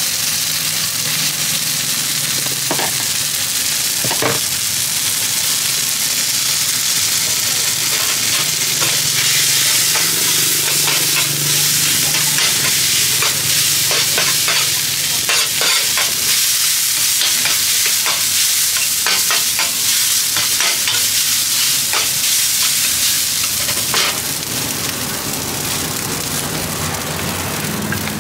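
Fried rice sizzling on a large flat metal pan while a metal spatula scrapes and clicks against the pan as it is stirred. The clicks come most often in the middle part.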